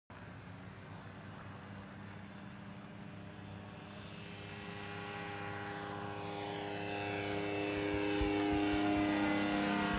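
Ultralight aircraft's 50 hp Hirth F23 two-stroke engine and propeller running at high power on takeoff and climb-out, a steady drone that grows steadily louder as the plane comes closer.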